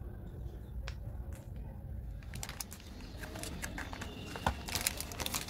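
Plastic and foil candy wrappers crinkling and crackling as they are handled, with many sharp clicks, starting about two seconds in. Before that, only a low steady rumble with a couple of faint clicks.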